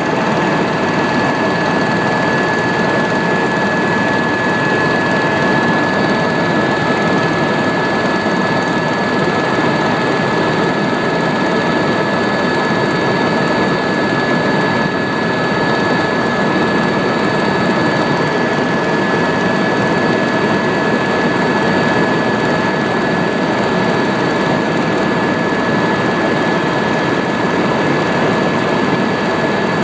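Tour helicopter's turbine engine and rotors running steadily, a dense even roar with a steady high whine over it.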